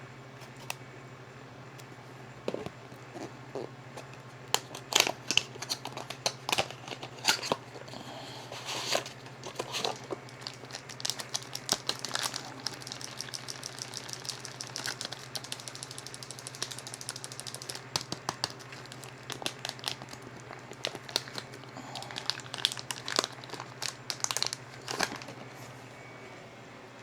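Plastic packaging crinkling and tearing with scattered clicks and handling knocks, as a UV ink cartridge is unwrapped and handled. A steady low hum runs underneath.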